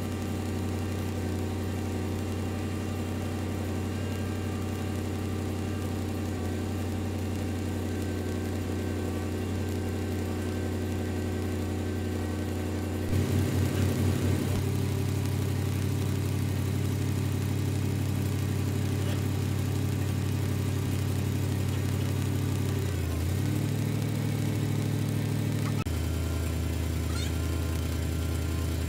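Boom-crane truck engine running steadily while the hydraulic crane lifts and lowers a truck cab. About halfway through the engine note steps up and gets louder with a brief pulsing, then shifts pitch twice more near the end as the crane is worked.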